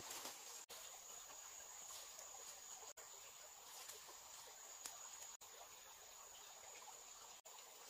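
Faint, steady high-pitched insect buzzing, as of crickets, in quiet forest surroundings, with a few faint ticks. The sound cuts out completely for an instant four times.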